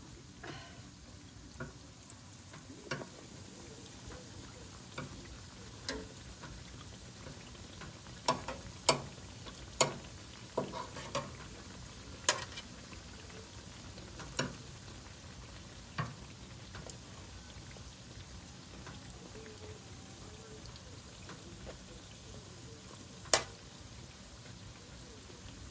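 Twisted sticky-rice doughnuts sizzling in a deep fryer of hot oil, with sharp clicks of metal tongs against the steel fryer as they are turned: a run of clicks from about eight to sixteen seconds in and one loud click near the end.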